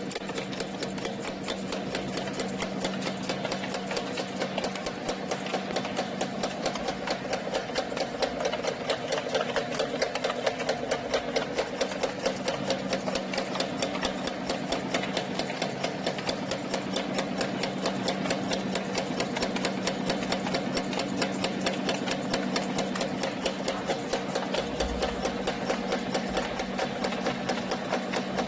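Spring washer making machine running, punching and cutting wire in a rapid, even clatter of strokes, with a steady hum underneath.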